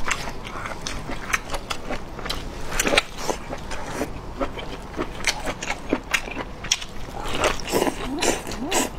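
Close-miked chewing of crunchy tripe: many crisp clicks and wet mouth smacks, with squelching as sauce-soaked pieces are pulled apart by gloved hands. There are a few short squeaks near the end.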